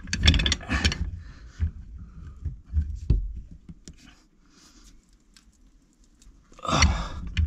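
A steel pipe wrench being fitted and worked on a corroded iron pipe fitting: clicks, knocks and scraping of metal jaws on pipe, with handling noise. A single knock comes about three seconds in, and a louder burst of noise near the end.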